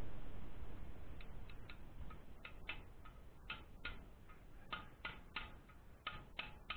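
A dozen or so light, irregular metal taps starting about a second in: a steel drift tapped against a new oil seal to seat it in the timing-side crankcase half of an old Royal Enfield Bullet.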